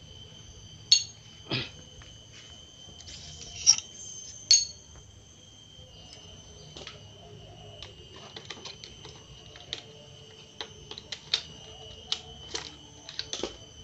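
Metal tools and engine parts clinking and knocking on an opened Honda Supra Fit motorcycle crankcase as the gearbox shafts are worked by hand with pliers: a few sharp clanks in the first half, then a run of light quick clicks near the end. A steady high thin whine sits underneath throughout.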